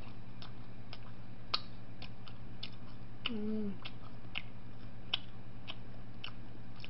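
Close-up chewing of crunchy food, sharp crunching clicks about twice a second, with one short hummed "mm" a little past the middle, over a steady low hum.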